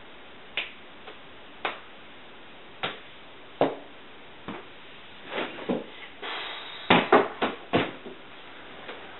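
Sharp single clicks about once a second, then rustling with a quick run of louder clicks and knocks near the end as a person shifts on a couch.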